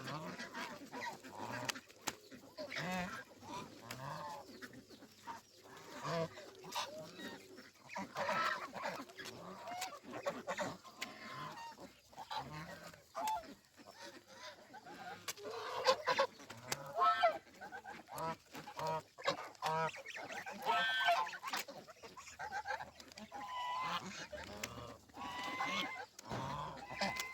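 A flock of domestic geese honking over and over, calls overlapping, mixed with the calls of other poultry.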